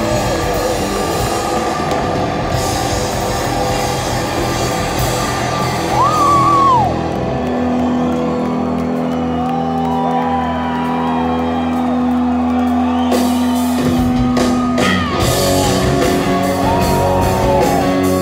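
A rock band playing loud live through a concert PA: electric guitar, bass guitar and drums, with high notes bending up and down and one long held note through the middle.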